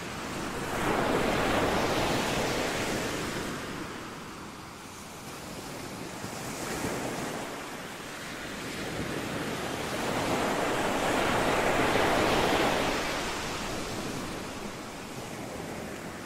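Ocean surf: waves breaking and washing in, swelling twice, about a second in and again after about ten seconds.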